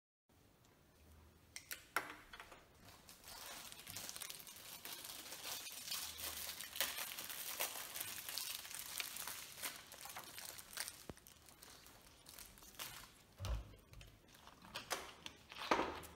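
Thin plastic wrapper crinkling and rustling as it is handled, a dense crackle that thins out after about twelve seconds. Near the end, a short sharper sound as a plastic soda bottle's cap is twisted open.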